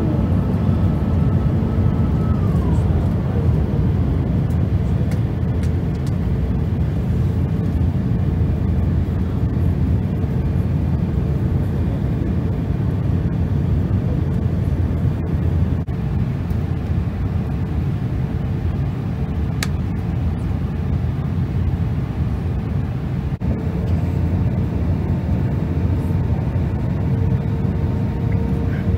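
Jet airliner cabin noise in flight: a steady low rush of air and engine drone, with a faint engine whine whose pitch glides down about two to three seconds in.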